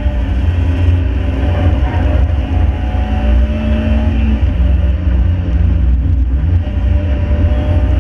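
Ford 1.7 Puma four-cylinder engine pulling hard in a Mk5 Fiesta on a fast lap, over heavy low road and wind rumble. The engine note holds steady, drops about four and a half seconds in, then climbs again.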